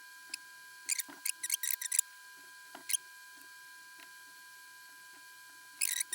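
Small parts being handled at a repair bench: light clicks and scratchy rustles of plastic and components, in a quick flurry about a second in, once near three seconds and again near the end, over a faint steady high whine.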